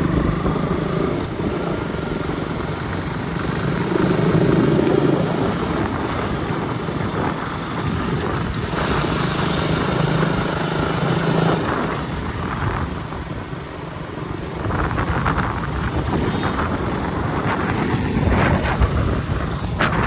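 Motorcycle engine running while riding along a road, with heavy wind rush on the microphone over a steady low engine hum.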